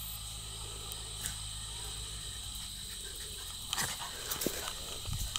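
Spaniels at play, one giving a few short, sharp vocal sounds about four seconds in, over a steady insect drone.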